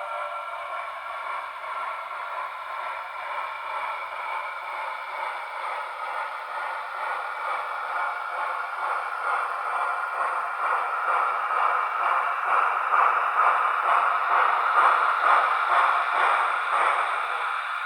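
Sound decoder in an HO model of AD60 Garratt steam locomotive 6032 playing rapid, even steam exhaust chuffs through its small speaker, with no low end. The chuffing grows steadily louder and eases off near the end.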